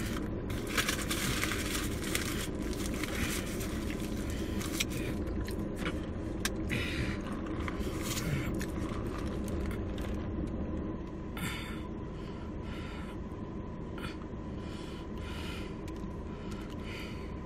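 Steady low hum inside a car, with scattered rustles, scrapes and small handling noises, busier in the first half.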